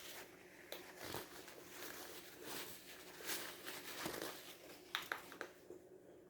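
Faint crunching and crackling of food being chewed, with a quick run of sharper clicks about five seconds in.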